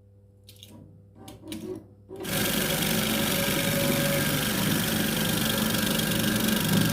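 A few light handling knocks, then about two seconds in an electric coil winding machine starts and runs steadily, winding copper wire onto the last coil of a ceiling fan's running winding.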